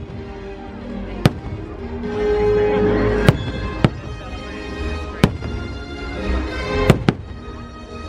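Fireworks shells bursting in the air: about seven sharp bangs at uneven intervals of roughly one to two seconds, over the fireworks show's music.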